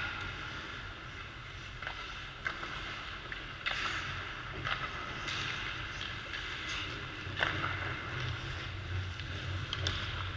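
Ice skates scraping and carving on the rink surface, swelling and fading, with several sharp clacks of hockey sticks and pucks scattered through. A steady low hum runs underneath.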